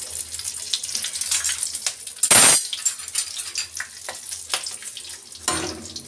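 Whole spices and green chillies frying in hot oil in a kadhai: a steady sizzle with fine crackling. A louder sudden burst comes about two seconds in.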